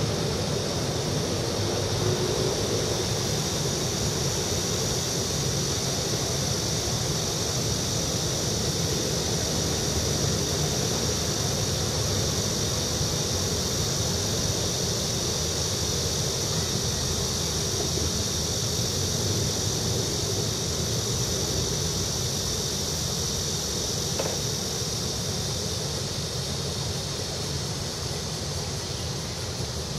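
Steady drone of road traffic from the nearby elevated road, with a constant high-pitched buzz laid over it.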